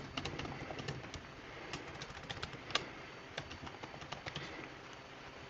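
Computer keyboard typing: faint, irregular key clicks, with one sharper click a little before three seconds in.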